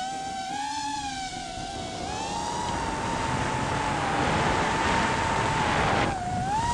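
FPV drone's motors and propellers whining at a high, fairly steady pitch that wavers and dips briefly near the end. A rushing noise grows louder beneath the whine from about two seconds in.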